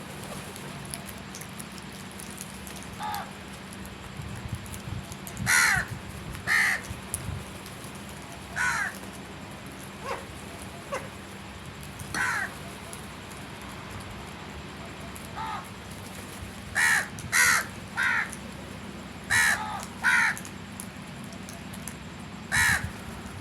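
Crows cawing: about a dozen harsh caws, some single and some in quick runs of two or three, over a steady low hum.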